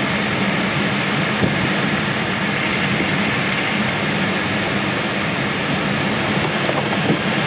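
Steady rush of air streaming past a Schempp-Hirth Duo Discus glider in flight, heard inside the closed cockpit.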